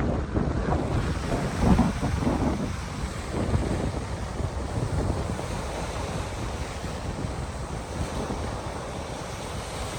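Lake waves washing against the shore with wind buffeting the microphone, in loud gusts during the first two seconds, then a steadier, softer rush.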